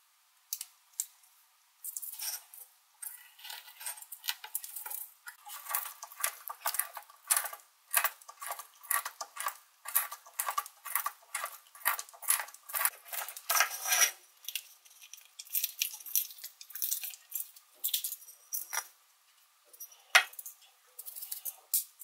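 Metal clicking and scraping of a Swiss Army Knife being handled, its tools snapped open and twisted into a soft pine block to bore a hole. Dense rapid clicks and scraping for about twelve seconds, then sparser clicks, with one sharp click near the end.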